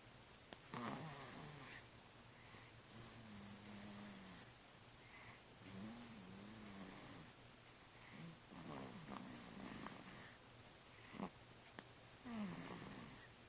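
Faint snoring: about five drawn-out snores a few seconds apart, each a low wavering tone with a breathy hiss.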